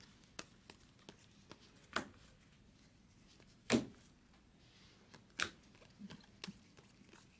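2020 Bowman baseball cards flipped one by one through a stack in the hands: quiet sliding with sharp clicks at irregular intervals, the loudest about four seconds in.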